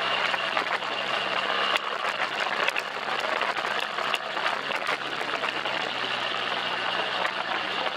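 BMW R1200GS boxer-twin motorcycle engine running at a steady pitch under a dense rushing noise, with scattered sharp clicks and rattles.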